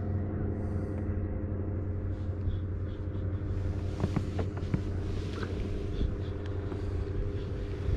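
Steady low motor hum with several even overtones, holding one pitch; a few light clicks and ticks sound over it about halfway through.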